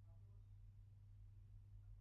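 Near silence: room tone with a low steady hum.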